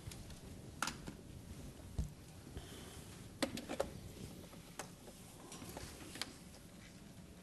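Quiet room tone with scattered light clicks and knocks a second or so apart: a low thump about two seconds in, and the loudest pair of clicks about three and a half seconds in.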